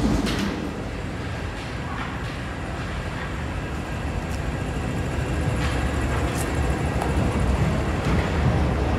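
Paris Metro train running alongside the platform: a steady low rumble of wheels on rails with a few brief sharp clicks, growing louder toward the end.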